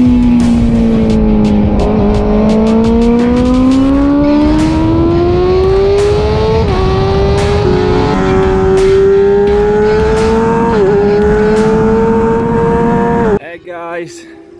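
Suzuki GSX-R600 inline-four engine at high revs on track. It slows briefly, then accelerates hard, its pitch climbing steadily, with two quick upshifts dipping the pitch about six and a half and eleven seconds in. The sound cuts off suddenly near the end.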